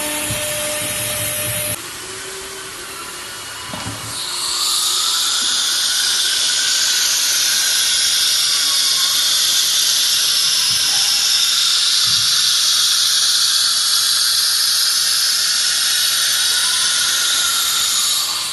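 Linear-ATC CNC router: the spindle cutting into the clamped plate briefly, then, after a drop and a knock about four seconds in, a loud steady high hiss with a faint whine that rises and later sinks.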